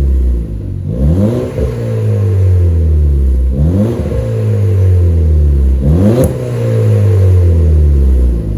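A car engine running loud, with three quick rises in revs, about a second, three and a half seconds and six seconds in.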